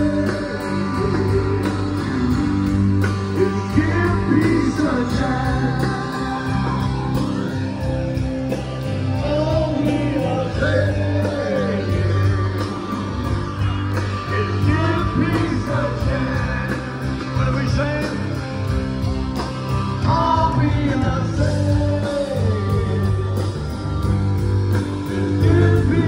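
Live rock band playing: singing over guitar with a steady bass line.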